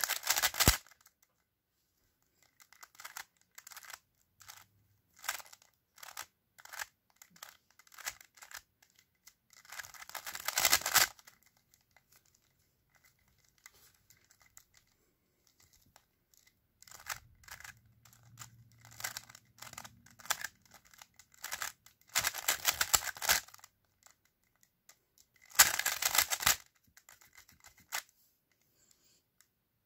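Plastic 3x3 speed cube being turned by fingers: fast runs of clicking layer turns as algorithms are executed, in several bursts with scattered single turns and short pauses between.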